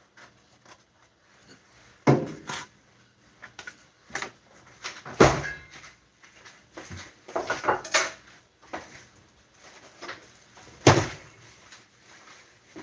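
Scattered knocks and clatters of household handling, off and on for several seconds, the loudest about two, five and eleven seconds in, with a quick run of clatters about eight seconds in.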